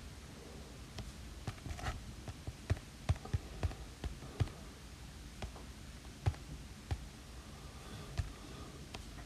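Irregular light taps of a stylus on an iPad Pro's glass screen while drawing, bunched together a few seconds in and then coming singly.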